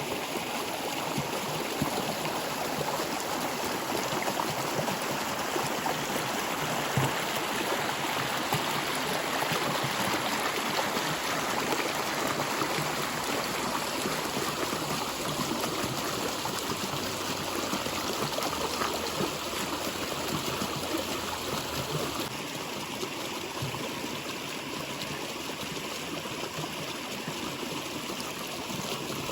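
Water flowing steadily over stones, with a constant rushing and trickling, slightly softer in the last few seconds.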